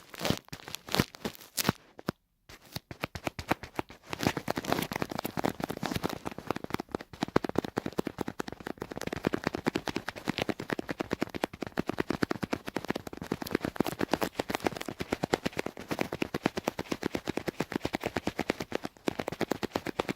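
Close-up tapping: a few separate taps, a brief pause, then from about four seconds in a long run of very fast, dense taps and clicks.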